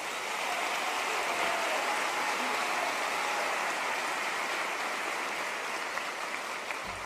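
A large audience applauding. The applause builds over the first second, holds steady, then fades near the end.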